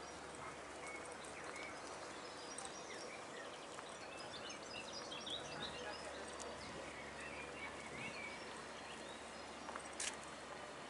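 Small birds chirping and twittering over steady outdoor background noise, with a single sharp click near the end.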